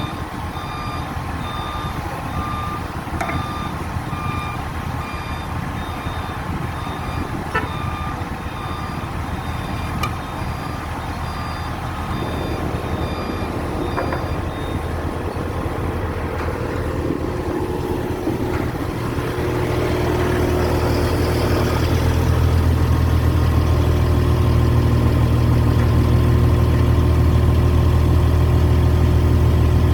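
A crane's reversing alarm beeps steadily over its running engine. The beeping stops about halfway through, and the engine then grows louder and holds a steady, heavy hum.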